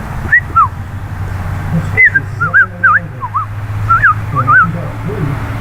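A person whistling a string of short, clear notes that slide up and down, two near the start and then a quick run of about ten from about two seconds in. A low steady hum runs underneath.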